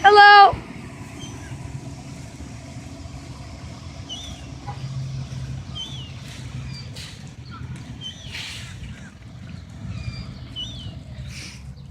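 A loud, half-second gull call at the very start, followed by short, high, dipping chirps from small birds every second or two. A steady low rumble runs underneath, with a few brief rustles.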